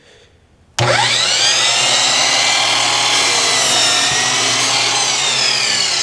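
Electric chop saw switched on about a second in, its motor whine rising quickly to full speed, then running steadily as the blade cuts through a piece of wood set at an angle.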